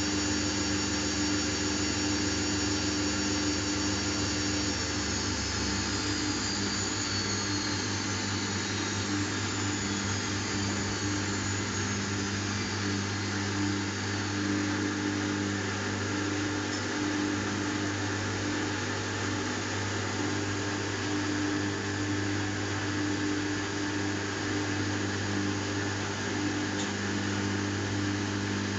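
Samsung WF70F5E0N4W front-loading washing machine spinning its drum at speed during the intermediate spin, a steady hum with motor whine. About a fifth of the way in the whine falls in pitch as the drum eases down in speed.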